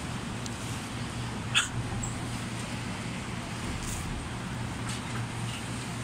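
Busy city street ambience: a steady low hum with traffic noise, and a short sharp click about a second and a half in.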